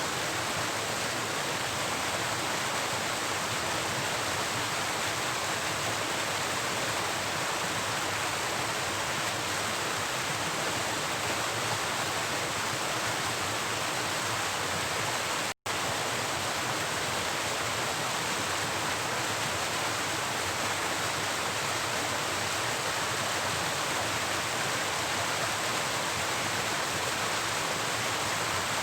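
Steady rushing of flowing river water, an even hiss with no rhythm, broken once by a momentary cut to silence about halfway through.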